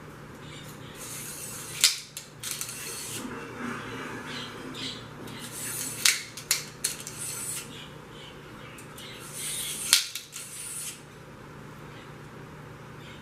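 A cleaning rod worked through the bore of a 9mm carbine barrel: three passes about four seconds apart, each a second or so of high scraping hiss ending in a sharp metallic click.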